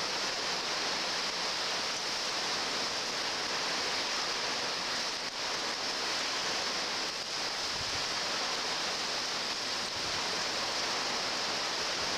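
Hurricane wind and driving rain, a steady rushing noise that holds even throughout.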